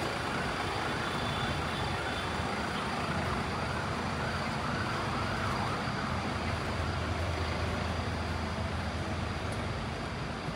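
City street traffic with a faint emergency-vehicle siren rising and falling through the first half, over the low hum of a passing vehicle's engine, which grows stronger in the second half.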